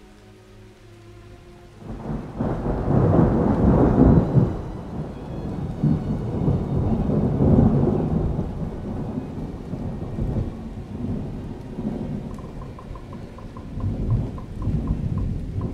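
Rolling thunder with rain, a deep rumble that comes in suddenly about two seconds in, swells twice and slowly dies away.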